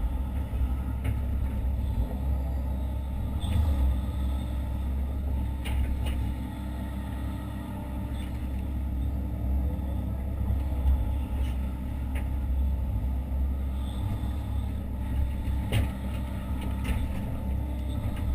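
Hitachi ZX130 excavator's diesel engine running steadily, heard from inside the cab, with a few short knocks.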